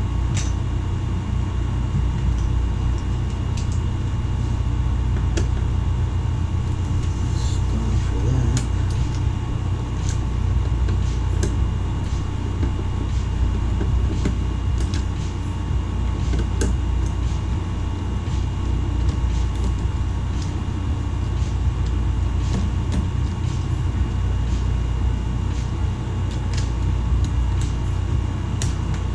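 Steady low machine hum with a faint steady whine above it, and scattered light clicks and taps of hand work taking apart an eMac's plastic case and screws.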